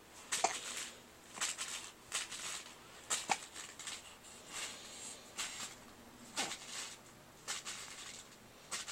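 Baby making short, faint breathy fussing sounds, roughly one a second, some with a tiny voiced catch.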